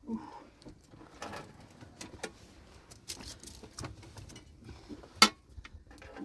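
Scattered light clicks and knocks of objects being handled, with one loud sharp click about five seconds in.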